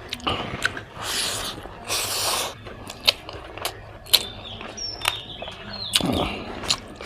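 Close-up eating sounds of a mouthful of spicy pork: chewing and lip smacking, with many sharp wet clicks and a few longer noisy stretches of about half a second each.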